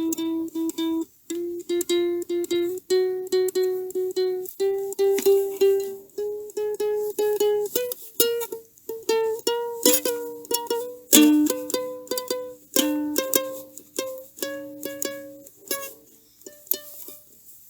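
A plucked string instrument, ukulele-like, playing an instrumental melody of quickly repeated single notes, about four a second, that step slowly upward in pitch and then alternate between two notes.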